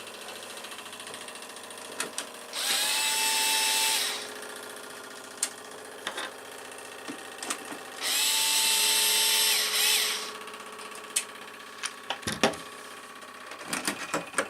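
Electric screwdriver run twice, a short spin of about a second and a half and then a longer one of about two seconds, each rising quickly in pitch and then holding steady, with handling clicks in between over a steady hum. It is taking out the case's side-panel screws.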